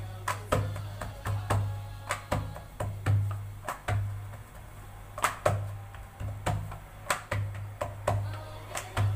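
Background music with a rhythmic drum beat.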